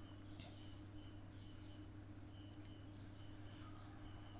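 Faint steady high-pitched tone over a low steady hum: constant background noise of the recording, with no speech.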